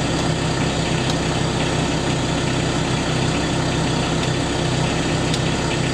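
Sherp ATV's diesel engine idling steadily just after a cold start, warming up, heard as an even low drone from inside the cab. A couple of faint ticks come over it.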